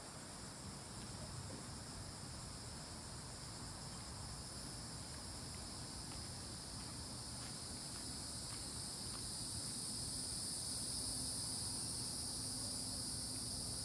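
Steady, high-pitched chorus of insects in the surrounding trees, growing louder toward the end, over low background noise.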